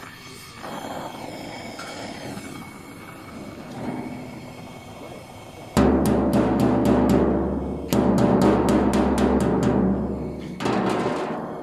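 Gas welding torch hissing against a steel truck fuel tank, then, about six seconds in, a hammer striking the fresh weld seam of a welded-on patch. The blows come rapidly, about five a second, in three runs, with the hollow tank ringing low under them.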